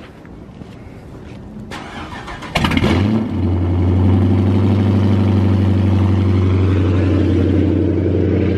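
Car engine started: a brief crank about two and a half seconds in, then it catches with a quick rev flare and settles into a steady, loud idle.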